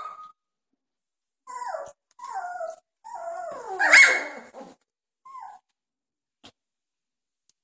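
Very young Doberman puppies squealing and whining in short calls that fall in pitch: four or five in a row, the longest and loudest about four seconds in.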